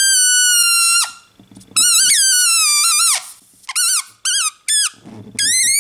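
Air squealing out of a rubber balloon's stretched neck: a high, wavering squeal that cuts off about a second in, then a longer one that bends down in pitch at its end. Three short chirps follow, then a squeal rising in pitch near the end.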